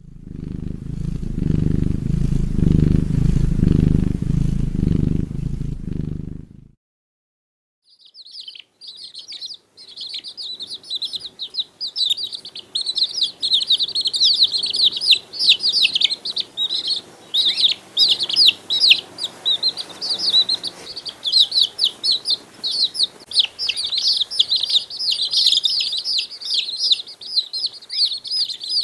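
A loud, low sound lasts about the first six and a half seconds and stops. After a short pause, many birds chirp at once: a dense, steady stream of rapid high-pitched chirps.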